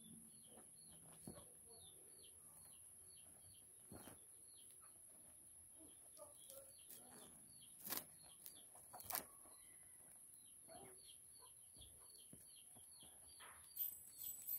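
Near silence with a bird's faint high chirps, repeated about three times a second with a short break midway, and a few soft knocks.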